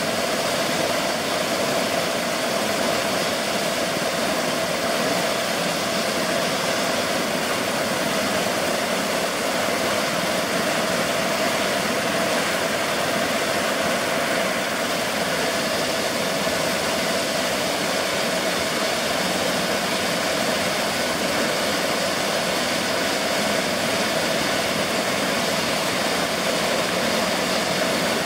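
Eurocopter EC135 P2+ helicopter running on the ground with its main rotor turning, its twin Pratt & Whitney PW206B2 turboshaft engines giving a steady whine over a constant rushing noise.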